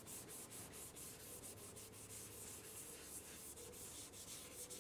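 Scotch-Brite abrasive pad scrubbing anti-corrosive gel into a bare aluminum valve cover in light circular strokes, lifting the fuzzy corrosion: a faint, rhythmic scratchy rubbing, about four to five strokes a second.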